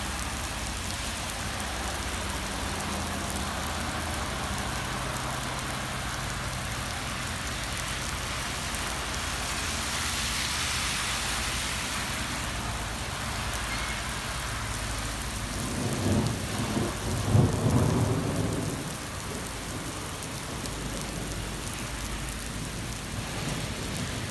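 Heavy rain falling steadily on a wet road and paving, with a low rumble of thunder lasting about three seconds two-thirds of the way through.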